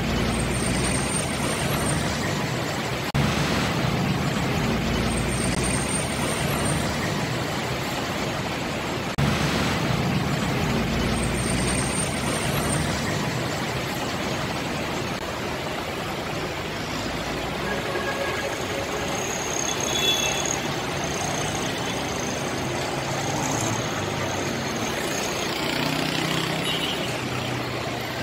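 Busy multi-lane highway traffic: a steady mix of truck, car and motorcycle engines and tyre noise from vehicles passing below, with a few brief high-pitched squeals.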